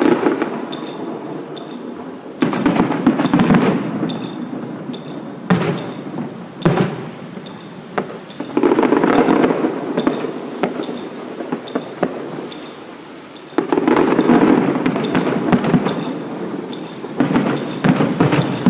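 Fireworks going off in a series of sudden volleys a few seconds apart. Each volley is a dense crackling rattle of small bangs that fades over a second or two.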